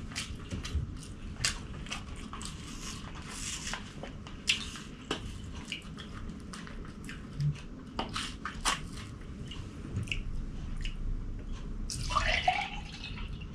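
Close-miked eating sounds: wet chewing and lip smacks with many scattered sharp clicks. Near the end there is a short pitched sound that glides up and down.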